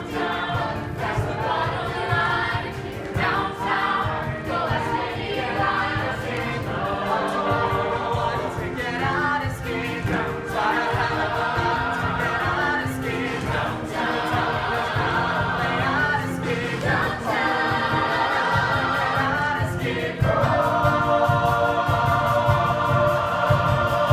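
A group of singers singing a musical theatre number together, backed by a live band of piano, guitar and drums. It gets louder about twenty seconds in.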